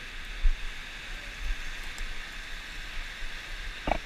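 Steady rush of flowing water from a waterfall stream, with low bumps on the microphone and a short thump near the end.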